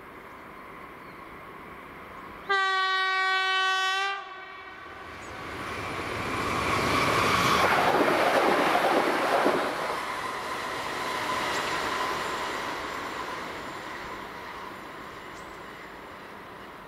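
A train sounds one steady horn blast of about a second and a half, then passes the level crossing: the rolling noise of the train builds, peaks and fades away over roughly ten seconds.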